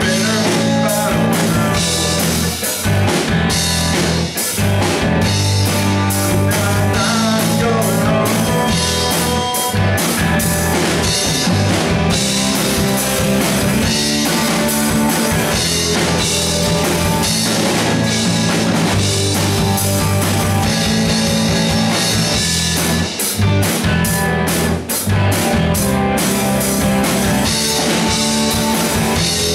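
Live rock band playing: two electric guitars over a drum kit, with frequent drum and cymbal hits.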